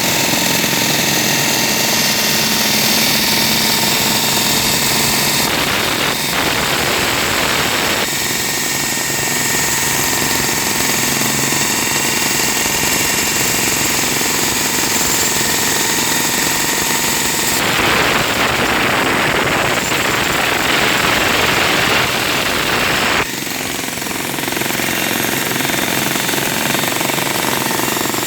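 Concrete breaker hammering continuously at a concrete pool wall or slab during demolition, in a rapid steady stream of strokes. The tone shifts a few times and the level drops slightly about 23 seconds in.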